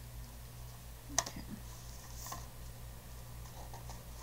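Hands handling stickers on a paper sketchbook page: a single sharp click about a second in and a brief soft scratch of paper a little after two seconds, over a steady low hum.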